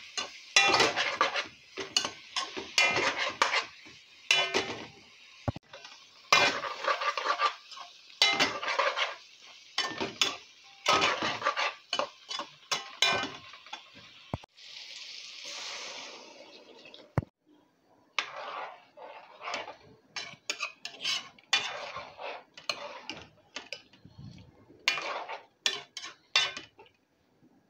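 A spoon scraping and clinking against the side and bottom of a metal pot in quick, irregular strokes as spiced potato and eggplant pieces are stirred and fried. Around the middle, the strokes give way to a steady hiss of about two seconds as water goes into the hot pot, and the stirring then carries on more softly in the liquid.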